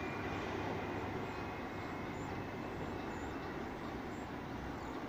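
Steady low rumble of a subway train at an elevated station, heard as the train pulls away into the distance.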